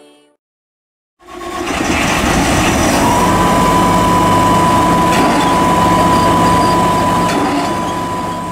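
Deutz-Fahr C6205 TS combine harvester running: a loud, steady machinery drone that fades in about a second in, with a constant high whine joining about three seconds in and the level easing off near the end.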